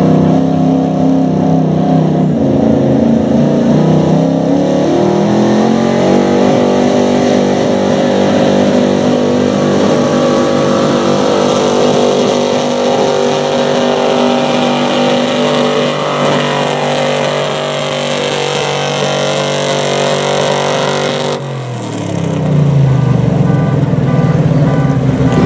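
Gasoline engine of a Dodge pickup truck pulling a sled under full load. The engine note climbs over the first few seconds, then holds at a steady high pitch. About 21 seconds in it cuts off, and another engine note rises as a new pull starts.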